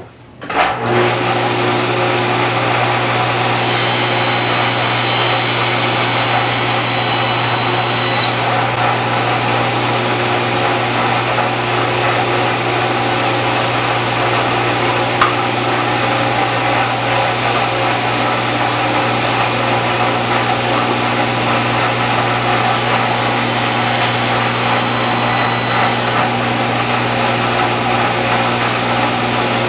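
A stationary woodworking power tool runs steadily, starting up about a second in. It makes two cutting passes through cherry: the first lasts about five seconds, the second about three and a half, near the end. They are cutting a 45-degree chamfer a little at a time.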